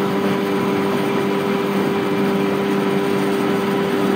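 A boat's engine running steadily under way, giving a constant droning hum over a steady hiss of water and wind.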